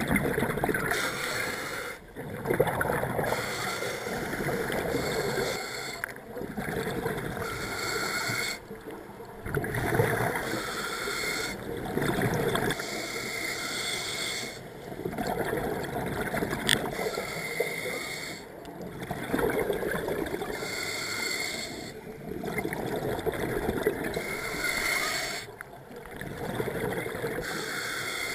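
Scuba diver breathing through a regulator underwater: a hissing inhale and a gurgling rush of exhaled bubbles, repeating every few seconds.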